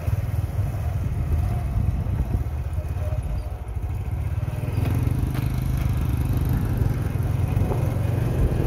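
Motorbike engine running steadily while being ridden along a dirt track through rice fields, with a few light knocks from the ride.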